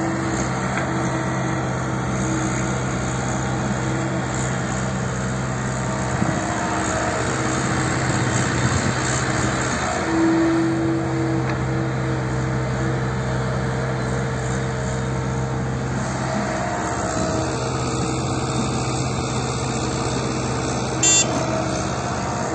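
A JCB machine's diesel engine running steadily, swelling slightly a few times as it works, with a brief sharp sound near the end.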